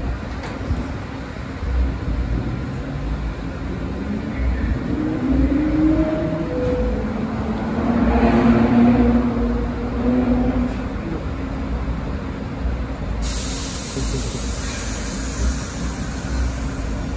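New York subway train noise at an elevated station: a steady low rumble, with an electric motor whine that rises and falls and swells to its loudest about halfway through. A steady hiss starts abruptly about 13 seconds in.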